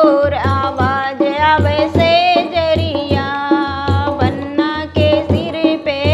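A woman singing a banna geet, a North Indian folk wedding song, over a hand drum beating a steady rhythm.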